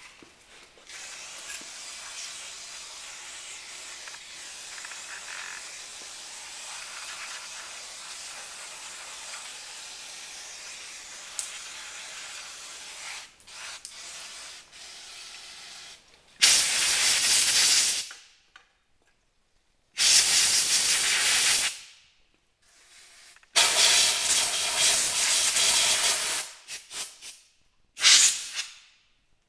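A fainter steady hiss for about fifteen seconds, then four loud bursts of pressurised spray lasting one to three seconds each, each starting and cutting off sharply.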